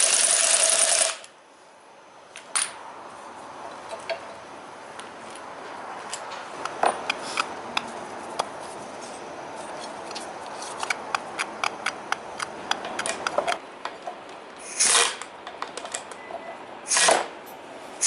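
Suspension of a Daihatsu Tanto L375S rattling and knocking: irregular sharp metallic clicks and clunks, thickest in the middle, with two louder rough bursts near the end, from play in the struts and lower ball joints. A loud rush of noise fills the first second and cuts off suddenly.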